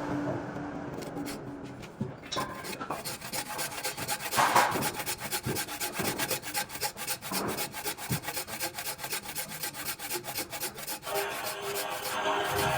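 Wood being worked by hand with rapid rasping, rubbing strokes, quicker and denser after the first couple of seconds.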